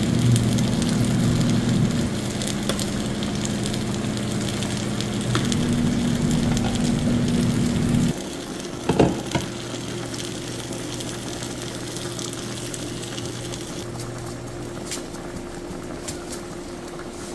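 Fish tinola broth simmering and bubbling in a pan over a steady low cooktop hum, the hum dropping about eight seconds in. A short knock about nine seconds in, as the pan's glass lid comes off.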